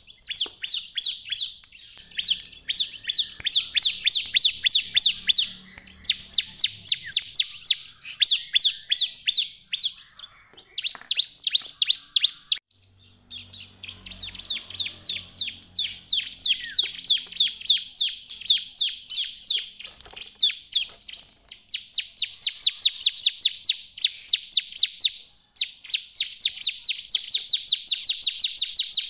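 Bar-winged prinia (ciblek) singing hard, the full 'gacor' song. It is a long rapid series of sharp, repeated high notes, several a second, in bouts of a few seconds broken by brief pauses.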